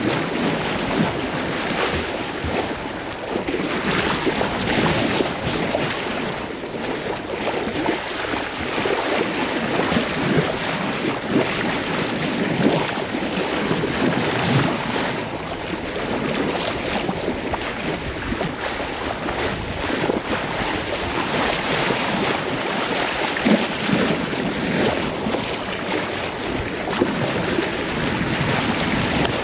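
Sea water rushing and splashing past a sailing yacht under way, with wind buffeting the microphone. It is a steady noisy wash that swells and eases.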